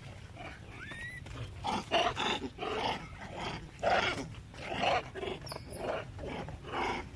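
Long-tailed macaques calling in a rapid string of short, harsh calls, starting about two seconds in and running on for several seconds, a few of them sharply louder than the rest.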